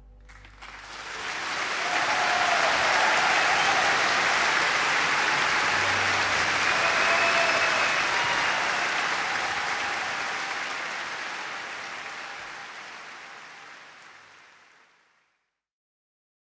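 Audience applause from a live orchestral concert recording, starting as the music ends. It swells within about two seconds, holds steady, then fades out near the end.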